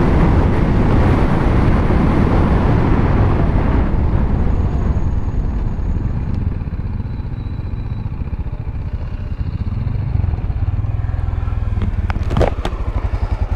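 Riding noise of a BMW G310GS, its single-cylinder engine and wind rushing past. It fades after a few seconds as the bike slows and pulls up, and turns into an even, pulsing idle near the end. A short knock sounds about twelve seconds in.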